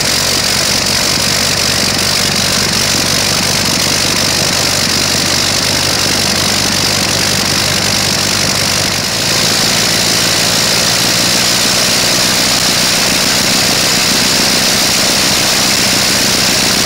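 Rotary aircraft engine, its crankcase and cylinders spinning with the propeller, running steadily; it gets a little louder about nine seconds in.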